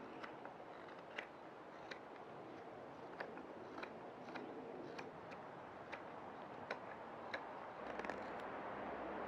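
A blade cutting wood by hand as a spoon blank is roughed out: faint, irregular sharp clicks, one or two a second, over a steady hiss that grows louder near the end.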